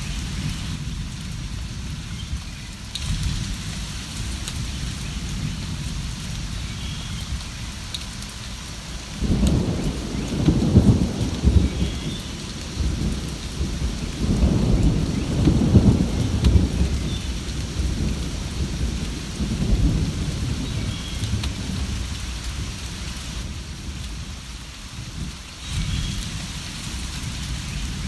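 Steady rain falling, with a low rumble of thunder that rolls in about nine seconds in, swells twice and dies away after about twenty seconds. A few faint bird chirps come now and then.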